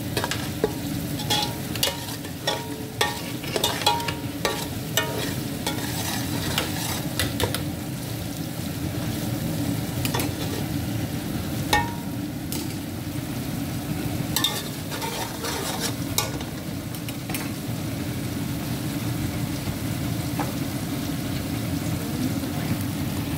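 Onions and spices frying in oil in an aluminium pot, crackling, while a metal ladle stirs and scrapes against the pot. The clicks of the ladle are frequent for the first several seconds, then come only now and then.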